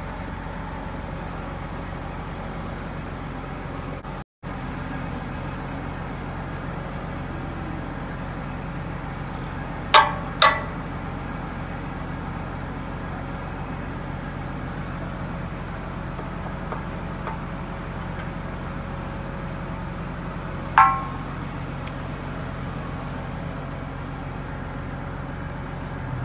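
New Holland T8 tractor engine idling steadily, with sharp metal-on-metal clanks from work on the ripper bedder's shank during a field repair: two close together about ten seconds in and one more about ten seconds later.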